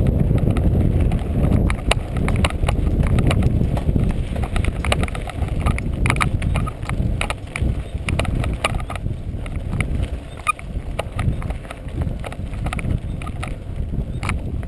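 Mountain bike rattling down a rocky dirt singletrack, heard from a handlebar-mounted camera: a dense, uneven run of clicks and knocks from the bike and mount jolting over stones, over a steady low rumble of tyres and wind.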